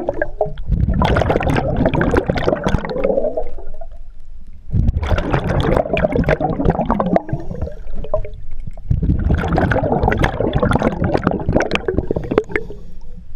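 Scuba regulator exhaust bubbles gurgling and rumbling underwater as a diver breathes out, three long bursts about four seconds apart with short lulls between breaths.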